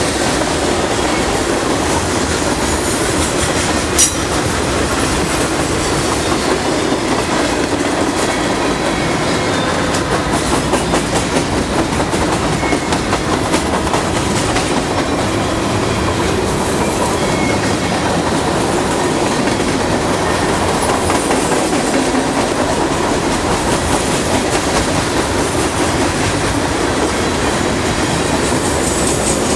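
Cars of a Norfolk Southern freight train rolling past, their steel wheels clacking over the rail joints in a steady rolling noise, with one sharp bang about four seconds in.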